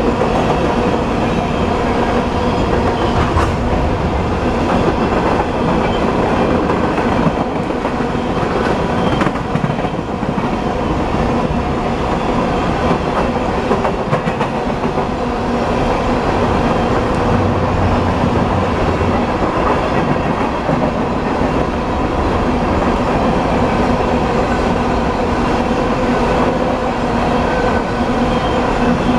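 Loaded coal hopper cars of a BNSF freight train rolling past at close range: a steady rumble of steel wheels on rail, with irregular clicks as the wheels cross rail joints and faint steady tones underneath.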